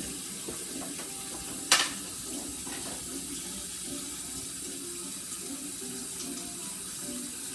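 Kitchen faucet running steadily into the sink, a constant hiss of water, with one sharp knock about two seconds in.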